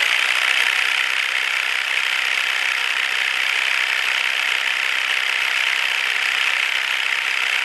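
Percussive massage gun running steadily at its second speed setting, about 1,900 RPM, with an even buzzing drone.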